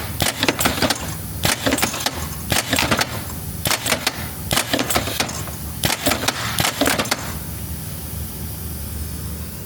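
Indexing mechanism of an 18-station rotary filler table cycling: seven short bursts of clattering knocks about a second apart, which stop about seven seconds in, over a steady low hum.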